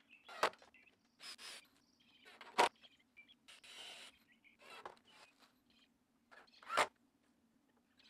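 Wooden form boards being handled and fitted together: three sharp knocks, one soon after the start, one about two and a half seconds in and one near seven seconds, with short scraping and scuffing sounds between.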